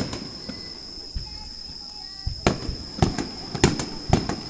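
Fireworks exploding: one sharp bang at the start, then from about halfway a quick run of sharp bangs and crackles.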